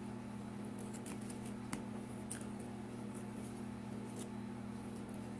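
Close-up chewing and eating sounds: soft wet mouth clicks and squishes as quesadilla and french fries are chewed, with a few sharper crackles. A steady low hum lies under it throughout.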